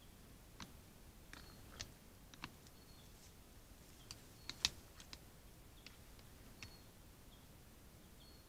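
Quiet, irregular sharp clicks and snaps, about a dozen, with the loudest a little past halfway: roe deer grazing and stepping through grass close to a trail camera. Faint short high chirps come now and then.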